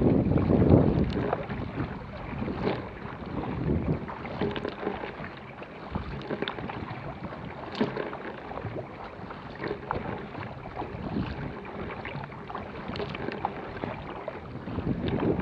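Water splashing and rushing along the hull of a Vajda Supersonic K1 racing kayak paddled hard through choppy water, with irregular sharp splashes from the paddle blades and waves, and wind buffeting the microphone. Louder about the first second and again near the end.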